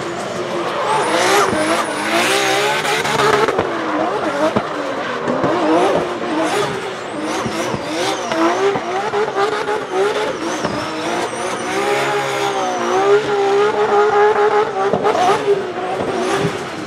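Drift car driven hard, its engine note rising and falling again and again as the revs are worked, over tyre squeal as it slides.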